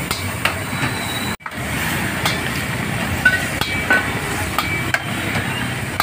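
Busy street-food market ambience: steady street noise with cooking sizzle, and scattered clinks and knocks of utensils. The sound cuts out for an instant about a second and a half in.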